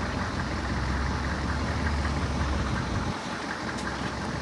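Toyota Fortuner's diesel engine running slowly as the four-wheel drive crawls down a steep rutted decline. The low rumble drops away about three seconds in.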